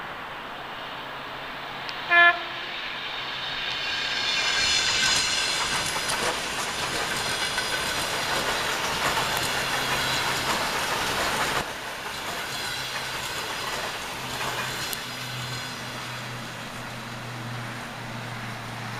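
ET2M electric multiple unit passing at speed: a short, loud horn blast about two seconds in, then the swelling noise of the cars going by with a high ringing whine over it. The noise drops suddenly near twelve seconds, leaving a steadier, lower running sound with a low hum.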